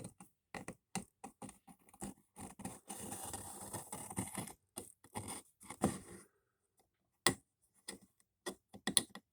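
Small wooden pieces and hand tools handled on a workbench: irregular clicks and taps, with a stretch of scraping and scratching in the middle and a few sharp clicks near the end.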